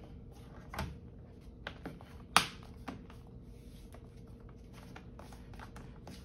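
Laptop bottom cover pressed down by hand so its plastic clips snap into place: a few sharp clicks in the first three seconds, the loudest about two and a half seconds in, then light taps and rubbing of hands on the panel.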